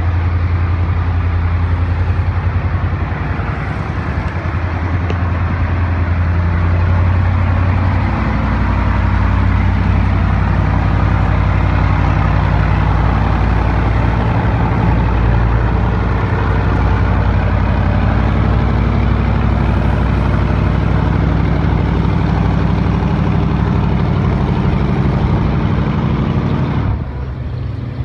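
Heavy engine running steadily: a loud low drone that shifts in pitch about eight seconds in and drops in level near the end.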